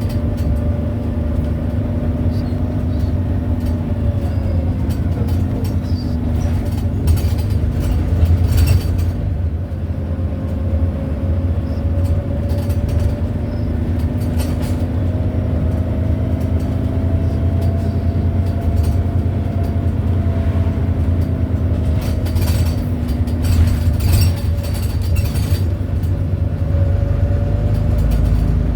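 Volvo B9TL double-decker bus on the move: steady engine and drive noise with a whining tone that slowly rises and falls. Clusters of short sharp noises come about eight seconds in and again from about twenty-two to twenty-five seconds in.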